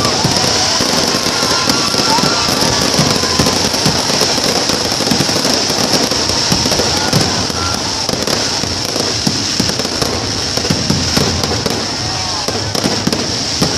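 Aerial fireworks display going off continuously: a dense run of crackles and sharp pops with a steady hiss over it.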